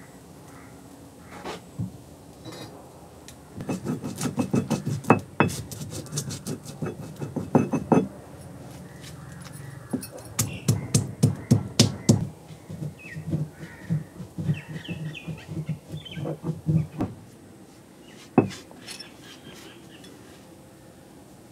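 Whole roasted spices, star anise among them, being pounded with a stone pestle in a granite mortar: quick knocks of stone on stone in two spells, the second starting about ten seconds in, with a single sharper knock near the end.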